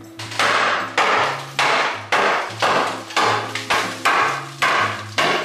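Hammer blows on wood, a steady run of about ten strikes at nearly two a second, knocking at a wedged piece of closet shelving during demolition.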